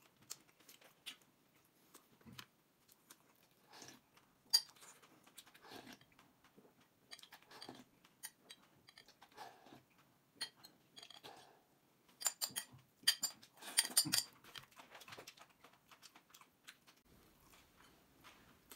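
Eating from a glass bowl with a metal spoon: scattered clicks of the spoon against the glass, with chewing between them. A quick run of clinks past the middle is the loudest part.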